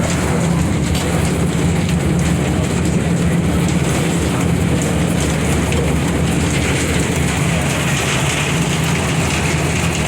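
Heavy rain pelting the roof and windows of an aerial tram cabin, a steady patter of drops over the low, even hum of the car running on its cables.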